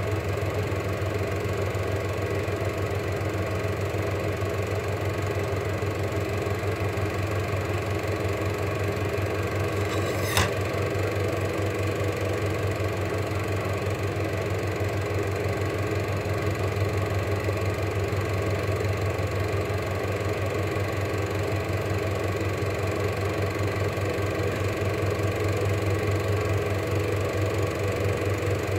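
Cine film projector running: a steady motor hum with a fast, even clatter from the film transport, and one sharp click about ten seconds in.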